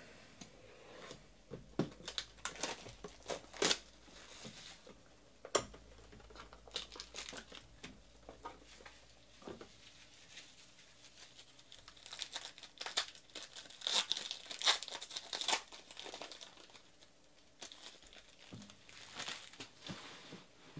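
Foil trading card pack being torn open and crinkled, then the cards slid out and handled, with crackling, clicking bursts that are busiest a couple of seconds in and again past the middle.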